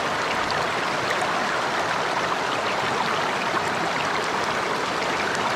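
Flooded creek water rushing steadily over and around rocks at a small rapid.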